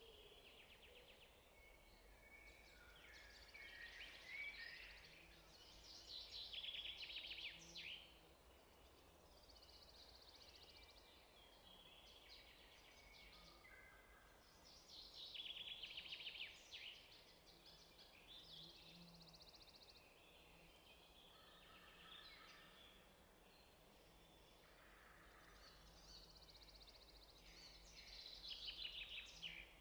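Faint birdsong: chirps and quick trills coming and going in several short spells over a low steady hum.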